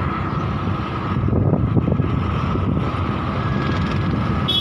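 Steady rumble of a vehicle on the move, with wind buffeting the microphone.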